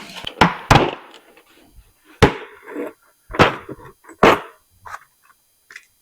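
A handful of sharp clanks and knocks, about five spread over a few seconds, with lighter rattles between them: hand tools being picked up and set down while swapping for a bigger tap.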